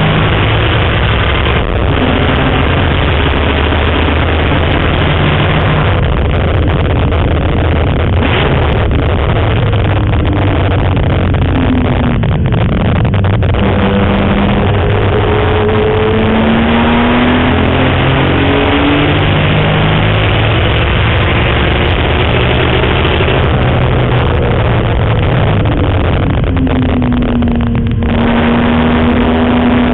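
BMW M3 engine heard from inside the car on a track lap, its pitch rising and falling again and again as it accelerates, shifts and slows for corners, over steady road and wind noise.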